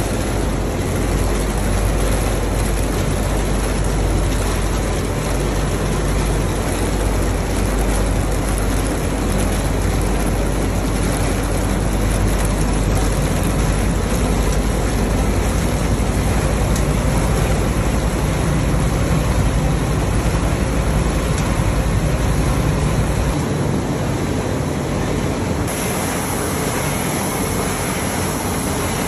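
Steady running noise of puffed snack-ring production machinery: a mesh-belt conveyor carrying the rings and dropping them onto a steel tray, with a low hum underneath. The low hum drops away a few seconds before the end and the sound changes where a rotating coating drum tumbling the rings takes over.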